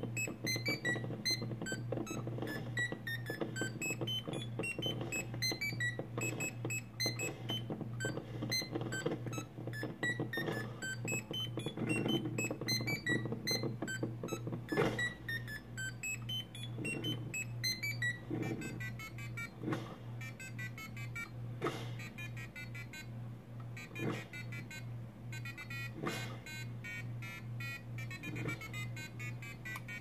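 A tune played as a run of short, high electronic beeping notes from the Arduino's buzzer fitted to the coffee maker, with a steady low hum underneath. The notes get fuller and denser about two-thirds of the way through.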